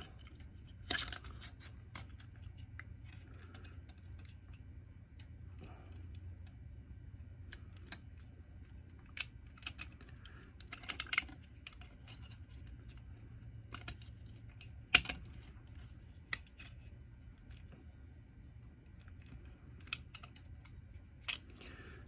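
Scattered small clicks and scrapes of hard plastic as the circuit board of a Ring alarm contact sensor is worked back into its plastic housing with a small metal tool, the board not going in easily. One sharper click about fifteen seconds in, over a faint steady low hum.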